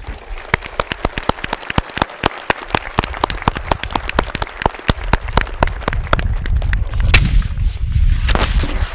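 Audience applauding, many separate hand claps at a brisk irregular rate. A low rumble comes in about halfway through.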